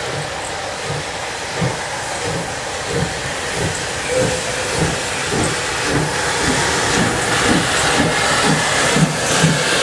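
DR class 35.10 steam locomotive (35 1097-1) starting slowly, its exhaust chuffing about twice a second and gradually quickening, over a continuous hiss of steam from the open cylinder drain cocks. The sound grows steadily louder as the engine approaches.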